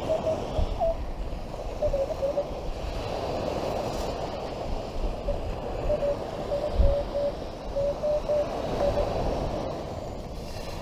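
Metal detector giving a string of short target beeps of one pitch, broken and uneven, as its coil is swept over beach sand, over a steady hiss. A low bump sounds about seven seconds in.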